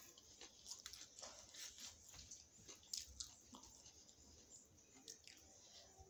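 Faint chewing and soft wet mouth noises of a person eating a veg paneer momo, with a scattering of small clicks.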